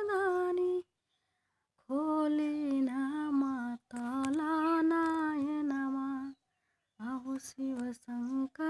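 A woman's voice, unaccompanied, carries the melody of a Bhojpuri devotional song to Shiva in long, wavering held notes. There are two short breaks, one about a second in and one near the end.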